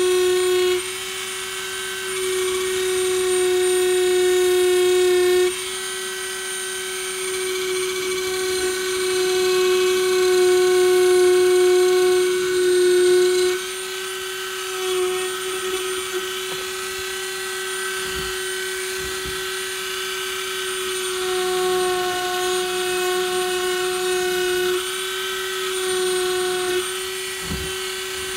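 Dremel rotary tool with an engraving bit running at about 20,000 RPM and cutting into wood: a steady high whine that does not change in pitch and gets louder and quieter in steps.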